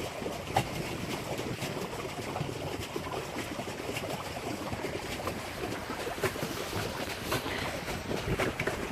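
Pedal boat's paddle wheel churning and splashing water steadily, with a few light knocks here and there.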